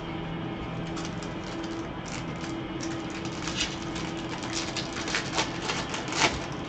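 Trading cards being handled: a run of light flicks and taps as a stack of cards is sorted and squared on the table, growing busier about halfway through, with the sharpest tap near the end. A low steady hum sits underneath.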